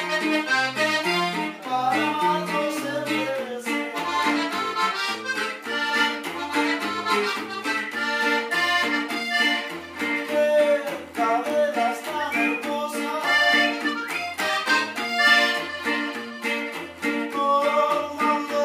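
Norteño duet music: a button accordion playing the melody over a strummed bajo that keeps an alternating bass-note and chord rhythm.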